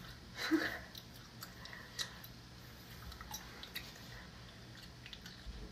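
A person chewing with the mouth open: scattered wet smacks and clicks, the loudest about half a second in.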